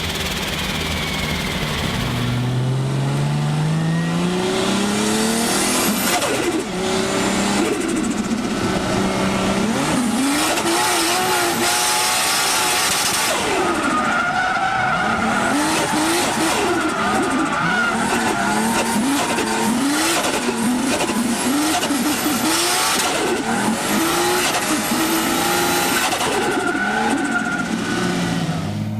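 Turbocharged car engine revving hard, its pitch climbing early on and then swinging up and down repeatedly, with a high steady squeal running through much of the second half.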